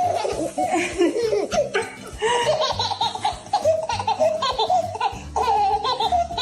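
A person laughing hard in long, repeated bursts of high-pitched laughter, over background music.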